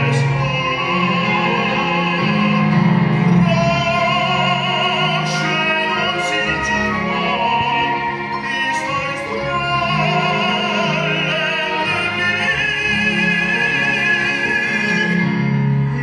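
Operatic singing with a wide vibrato on long held notes, over orchestral accompaniment.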